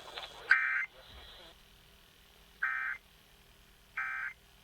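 Emergency Alert System end-of-message data code: three short bursts of buzzy, warbling digital tone, each about a third of a second long, the later two about a second apart. The code marks the end of the alert.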